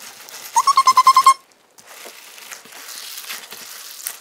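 A squeezed rubber balloon ball packed with glue-soaked water beads: its rubber skin gives a quick stuttering squeak under the fingers about half a second in. Then comes a steady crackling, squelching rustle as the beads shift inside.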